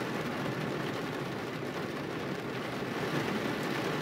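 Steady noise of a car driving on a rain-soaked road, heard from inside the cabin: tyres hissing on wet pavement and rain on the car, over a low engine hum.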